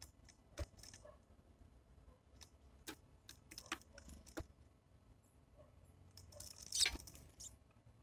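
Great tit and blue tit at a wooden tray seed feeder: faint, scattered sharp taps and clicks of the birds' feet and beaks on the wooden rail and the seeds. A louder flurry of clicks and rustling comes near the end, as a bird leaves the tray.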